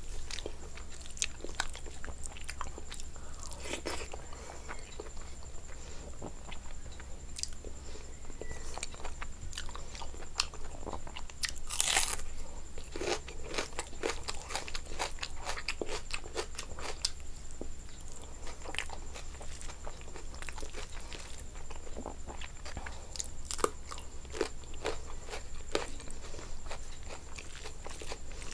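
A person chewing and biting into food close to the microphone, with many small sharp clicks throughout and a louder one about twelve seconds in. A steady low hum and a faint high whine run underneath.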